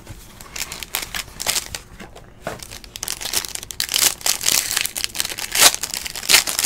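Foil wrapper of a 2016 Panini Infinity Football card pack crinkling as hands tear it open: an irregular run of crackles that gets louder about halfway through.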